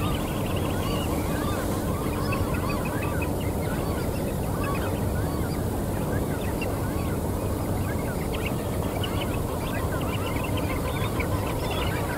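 A flock of birds calling all at once: a dense chatter of many short, overlapping calls over a steady rushing background noise.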